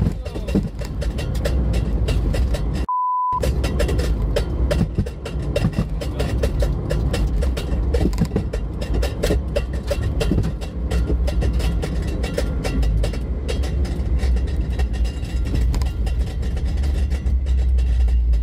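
Car engine and road noise heard from inside the cabin while driving at highway speed, a steady low rumble. About three seconds in, everything cuts out for a single short, high-pitched beep tone.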